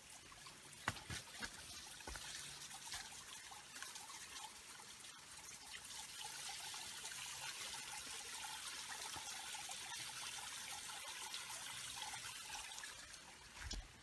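Water trickling in a small woodland stream, building to a steady trickle and fading out near the end. A few footsteps on the trail come in the first second and again near the end.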